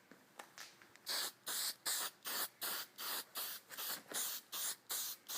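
Aerosol can of Krylon Crystal Clear clear coat spraying in short, quick hissing bursts, about three a second, starting about a second in: a light coat being misted on with brief passes so the clear does not run.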